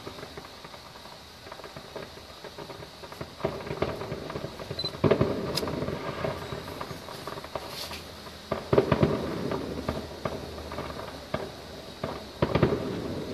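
Distant aerial fireworks bursting: several clusters of bangs and crackles, the loudest about five, nine and twelve seconds in.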